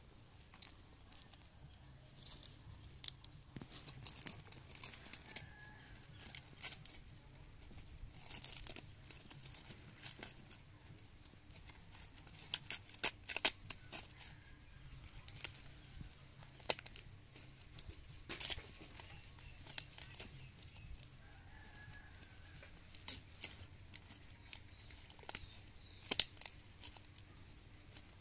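Dry bamboo leaves crinkling and tearing in irregular crackles and snaps as a baby monkey pulls at them.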